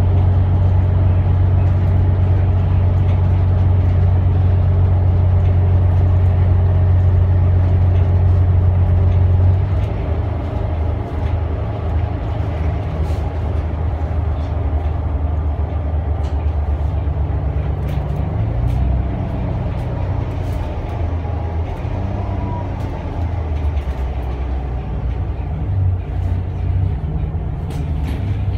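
Volvo B8RLE city bus heard from inside the cabin, its Volvo D8K six-cylinder diesel running steadily under load with a strong low drone. About ten seconds in the engine note drops and quietens, then its pitch wanders up and down as the bus continues through its ZF EcoLife automatic gearbox.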